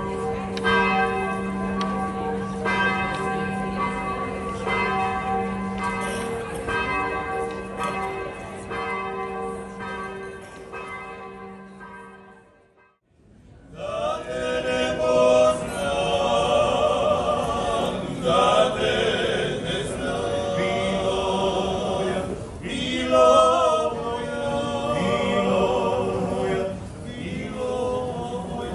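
Church bells ringing, with strikes repeating about every three-quarters of a second over a held ringing hum; they fade out about 12 seconds in. After a break, a four-man klapa group sings a cappella in close harmony, male voices with vibrato.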